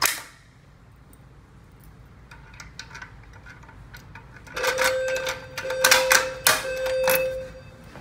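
A sharp snap from the Notifier manual fire alarm pull station at the very start, then light clicks of a key in its reset lock. About four and a half seconds in, a steady alarm tone from the voice evacuation system comes in under loud metallic clanks and rattles, and it drops away shortly before the end.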